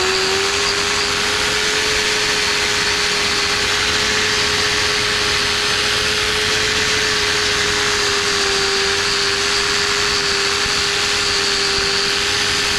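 Corded angle grinder with a brush attachment running at speed, scouring bark off pine logs, a steady motor whine over the scraping. The whine dips slightly for a moment about eight seconds in.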